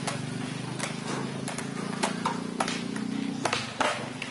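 Sharp, irregular clicks and knocks over a steady low mechanical hum, which stops about three and a half seconds in.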